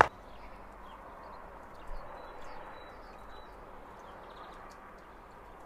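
Quiet outdoor ambience: a steady low hiss with a few faint, high bird chirps in the middle.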